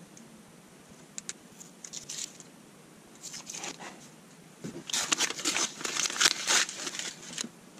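Protective paper masking being peeled off clear laser-cut plastic parts by hand. Faint crackles come first, then, from about halfway through, a louder run of tearing, crinkling pulls.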